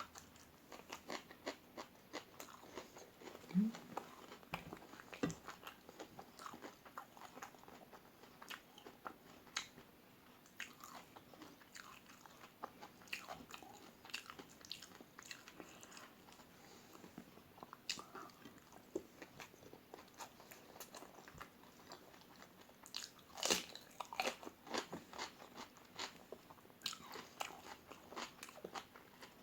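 Close-up eating sounds: crispy fried omelette being bitten and chewed, with many small crunches and mouth clicks. A louder run of crunchy bites comes about 23 seconds in.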